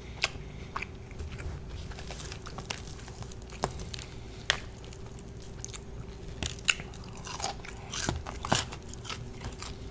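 Chewing and crunching on crispy KFC fried chicken breading, with scattered sharp crunches throughout.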